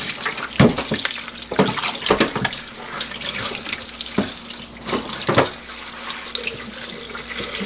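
Kitchen tap running in a stainless steel sink onto a whole raw duck while gloved hands rub and scrub it clean, with several short wet slaps and splashes as the carcass is handled.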